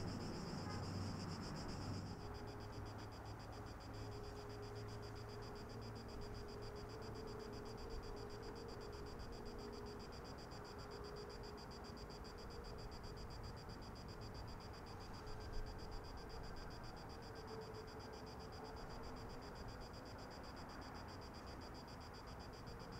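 Faint, steady high chirring of insects, with a low distant aircraft drone beneath that eases about two seconds in. A single brief tap stands out about two-thirds of the way through.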